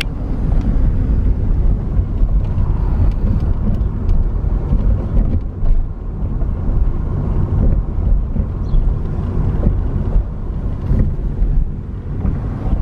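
Steady low rumble of a car in motion.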